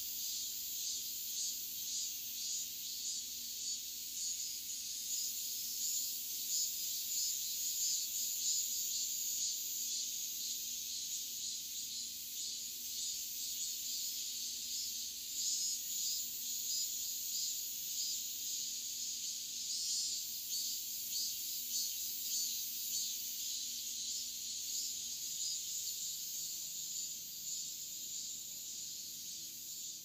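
Cicadas calling in a dense summer chorus: a steady, high-pitched, rapidly pulsing buzz.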